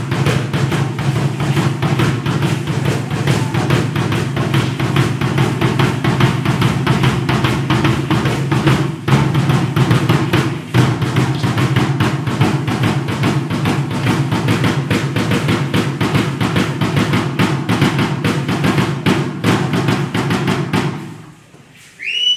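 Fast, steady drumming for a Mexica (Aztec) dance, dying away about a second before the end.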